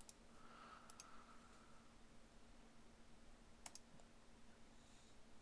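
Faint computer mouse clicks: one at the start, then pairs of clicks about a second in and just before four seconds, over a low steady hum.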